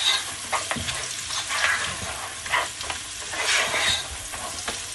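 Boiled mutton pieces sizzling in hot oil with browned onions in a pot as a spatula stirs them, a swish with each stroke about once a second: the light frying of the meat after it comes out of the yakhni stock.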